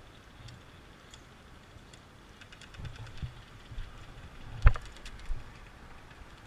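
Handling and movement noise: scattered light clicks and a few soft thumps, with one sharp loud knock a little past halfway.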